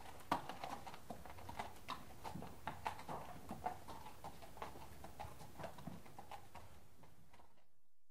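A horse's hooves clip-clopping in a slow, irregular beat, growing fainter and fading away near the end.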